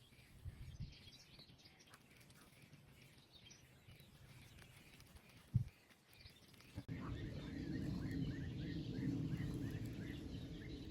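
Birds chirping faintly outdoors, with a single thump about five and a half seconds in. About seven seconds in, a steady low rushing noise cuts in abruptly, with birds chirping in a quick, evenly repeated series over it.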